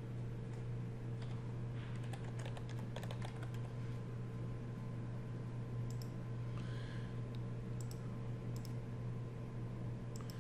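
Typing on a computer keyboard: a quick run of keystrokes about two to three and a half seconds in, then a few single clicks later on, over a steady low electrical hum.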